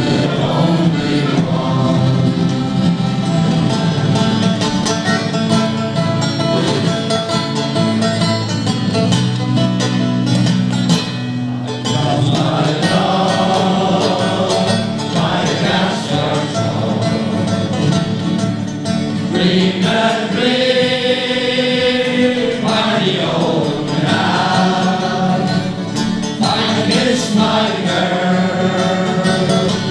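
A group of men singing together in chorus, with acoustic guitars strumming along.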